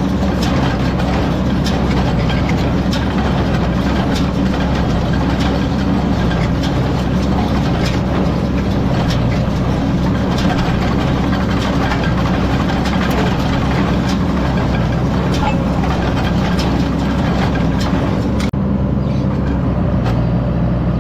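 Tractor engine running steadily while a hay baler works, with a constant clatter of sharp mechanical ticks over the engine. About eighteen and a half seconds in, the sound changes abruptly and the high-pitched clatter drops away.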